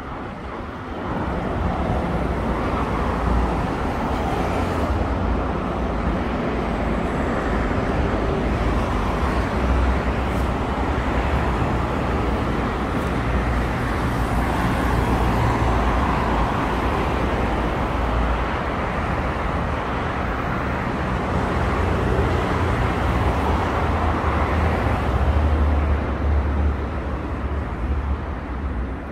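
Steady road traffic on a wide city avenue: cars passing in a continuous wash of tyre and engine noise, getting louder about a second in.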